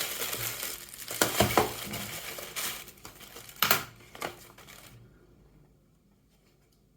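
Packaging crinkling and rustling as it is unwrapped by hand, with louder rustles about a second and a half and nearly four seconds in; it stops about five seconds in, leaving a few faint clicks.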